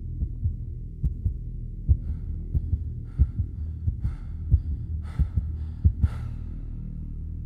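Soundtrack of slow heartbeat-like low thuds, often in pairs, over a steady low drone. From about two seconds in, faint rustling hiss comes and goes above it.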